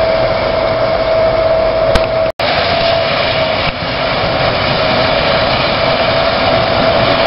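ST44 diesel locomotive (Soviet-built M62 type, two-stroke V12) running as it approaches slowly while shunting, a steady loud noise with a constant high whine through it. The sound breaks off for an instant about two seconds in, then carries on as before.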